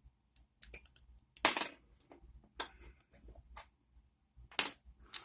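Metal lock picks clicking and clinking in the keyway of an ASSA Ruko 2 padlock as the lock is raked and picked. The sharp clicks are scattered, with a louder ringing clink about a second and a half in and another near the end.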